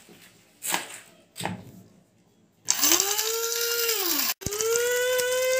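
CPEX SZJ-1306 300 W stainless-steel mini spice grinder grinding cashews. After two soft knocks, its motor whines up to speed about two and a half seconds in, runs briefly and winds down when the button is let go, then starts again and runs steadily.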